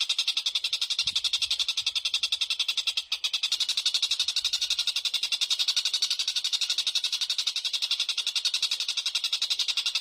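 Small songbirds chattering and trilling at a fast, even pulse, high-pitched and unbroken apart from a short gap about three seconds in: a looped bird-song recording used to train competition songbirds.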